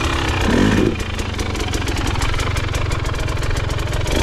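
KTM off-road motorcycle engine running steadily at low revs, close to idle.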